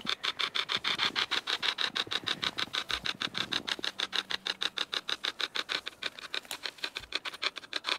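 Hacked radio used as a ghost box ('hack shack'), sweeping continuously through stations: a fast, even chatter of static pulses, about nine a second.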